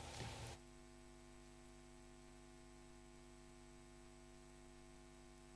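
Near silence with a faint, steady electrical mains hum; a short stretch of room noise cuts off abruptly about half a second in, leaving only the hum.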